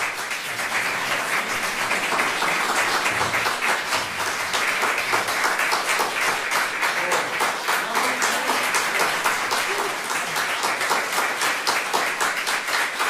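Small audience applauding steadily.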